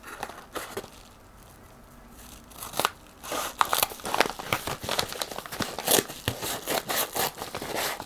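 Plastic packaging being handled and opened. It is fairly quiet at first, then from about three seconds in comes a run of crinkling, crackling and tearing.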